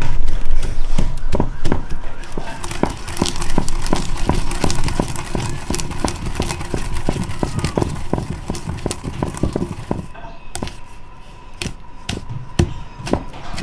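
Neem-wood pestle pounding and grinding almonds in a stone mortar: a steady run of dull knocks, about two to three a second, growing sparser and quieter near the end.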